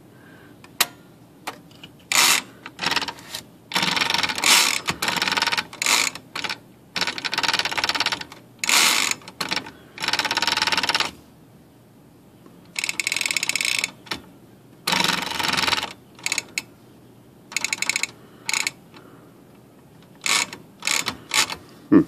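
Smith Corona typewriter carriage and escapement mechanism ratcheting in repeated bursts of rapid clicking as the carriage is run and stopped, with single sharp clicks in between. The carriage is not latching properly.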